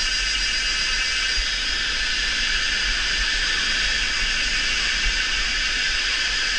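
Dense, steady chorus of calling insects: a continuous high buzzing hiss with no breaks.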